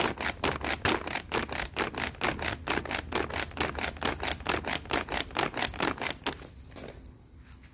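A flat hand-held fan waved rapidly over a charcoal barbecue to fan the embers, making fast rhythmic swishes at about five strokes a second. The swishes weaken and stop about six and a half seconds in.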